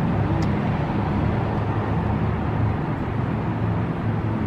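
Steady low rumble of a car idling, heard from inside the cabin, with a faint short click about half a second in.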